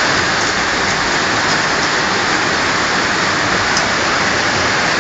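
Hailstorm: hail and heavy rain pelting down hard in a loud, dense, unbroken hiss.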